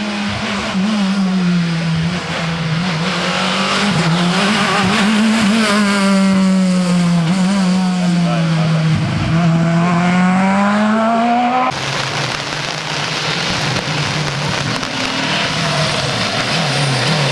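Rally car engine at racing speed on a special stage, its pitch dropping and climbing several times through gear changes and braking, with some tyre squeal. About two-thirds of the way through, the sound switches abruptly to another rally car's engine.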